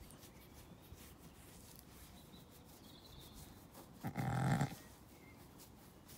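A Zwartbles sheep bleats once about four seconds in: a single short, low baa lasting under a second.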